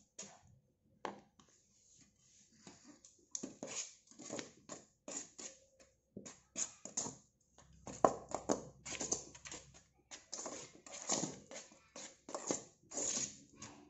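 Dry flour being stirred in a metal pot with a spoon and by hand: irregular scraping and rustling strokes, sparse at first and coming thicker from about three seconds in. The flour is seasoned crispy-coating flour mixed with plain wheat flour.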